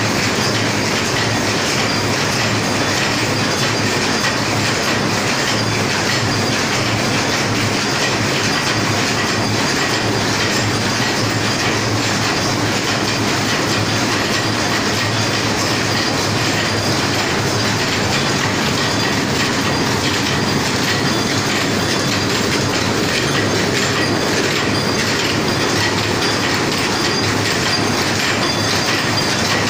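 High-speed paper cup forming machine running, a steady, rapid mechanical clatter that keeps on without pause.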